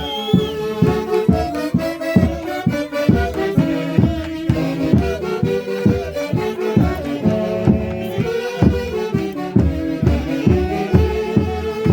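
Folk orchestra playing a lively traditional Andean tune: melody instruments hold and move between notes over a steady, even beat of about two to three strokes a second.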